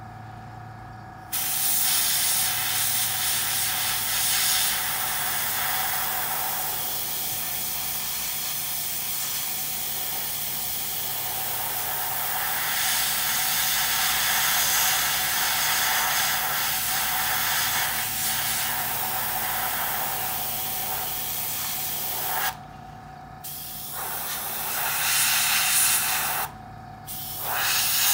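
Airbrush spraying paint: a steady hiss of air and atomised paint that starts about a second in and stops briefly twice near the end as the trigger is let off.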